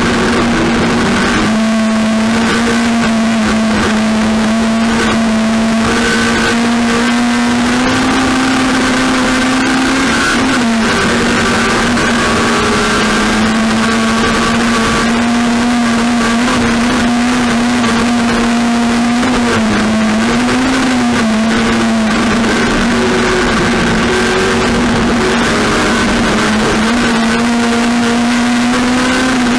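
Race car engine running at high, nearly steady revs, with brief dips in pitch about ten seconds in and again about twenty seconds in.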